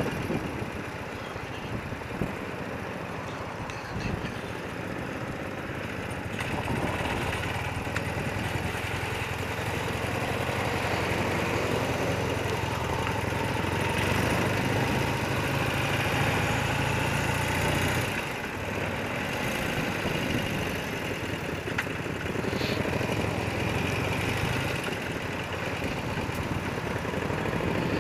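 Motorcycle engine running at low road speed, heard from the rider's own bike. It picks up for a stretch and eases back about eighteen seconds in.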